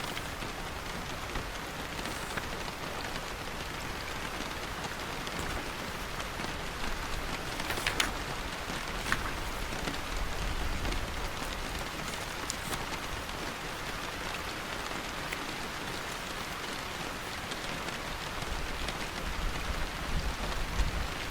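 Steady rain falling, with a few sharper taps standing out about eight, nine and twelve seconds in.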